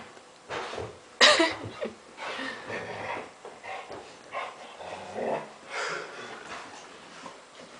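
A poodle and a pit bull-type dog at play, making short dog vocal sounds in irregular bursts, the loudest a little over a second in.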